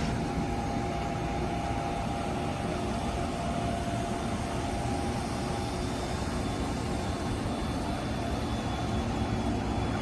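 Amtrak Siemens Charger diesel locomotive running steadily: a low, even engine drone with a faint whine that fades out about halfway through.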